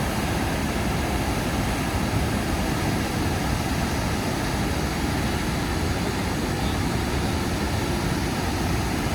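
Steady roar of a waterfall's rushing water, a constant even noise with no breaks.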